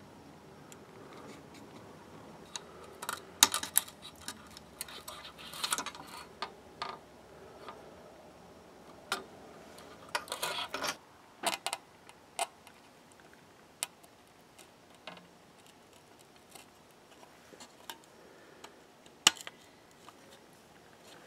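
Small clicks, taps and clattering from handling an instrument cluster circuit board and its small plastic gauge stepper motors. There is a burst of sharper clacks a few seconds in, another around the middle, and a single sharp click near the end.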